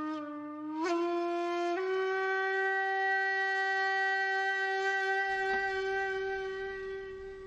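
One long horn-like wind-instrument note, rich in overtones, sliding up in pitch about a second in and stepping up again shortly after, then held steady and fading near the end.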